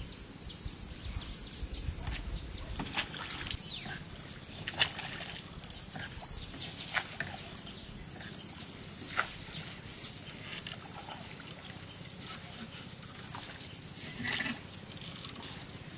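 Birds calling: short, high, rising chirps every few seconds, with a few faint clicks in between.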